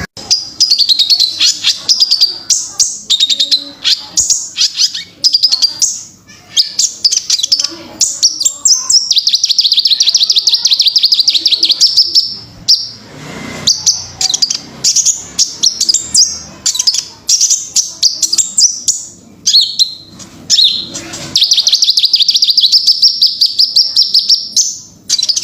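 Kolibri Ninja sunbird singing: long runs of rapid, high twittering trills and chatter, broken by a few short pauses.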